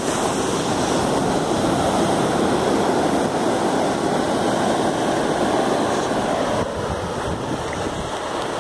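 Sea surf breaking and washing up a flat sandy beach: a steady rush of waves and foaming backwash, easing slightly about two-thirds of the way through.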